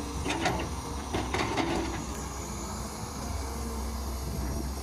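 Kobelco hydraulic excavator working: a steady low engine hum, with several sharp metallic clanks and short squeaks in the first two seconds as the boom, arm and bucket linkage move through the soil.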